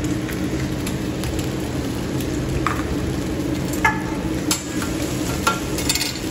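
Eggs and rice frying on a hibachi steel flat-top griddle, a steady sizzle. From about two and a half seconds in come several sharp metal clinks of the chef's utensils against the griddle.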